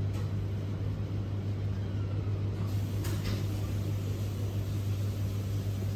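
Steady low machine hum, with two faint clicks about three seconds in.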